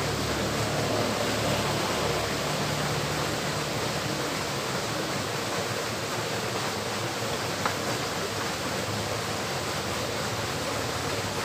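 Steady rushing hiss of water flowing in a small stream.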